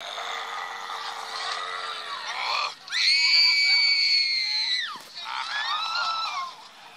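High-pitched screaming: wavering cries, then one long held shriek about three seconds in that lasts two seconds and drops away at the end, followed by shorter wavering cries.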